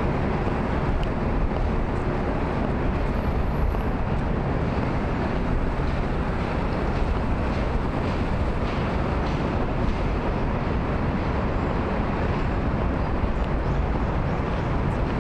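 Steady city street noise of road traffic: an even rushing sound with a low rumble.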